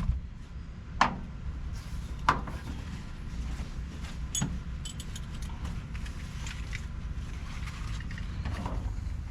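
Seat belt hardware and tools clinking and knocking against the cab: three sharp metallic knocks in the first half, then a few faint ticks over a steady low rumble.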